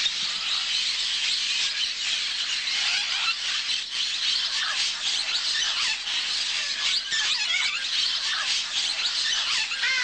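A large mixed flock of parrots, blue-headed parrots among them, calling all at once: a dense, unbroken chatter of high, squeaky calls.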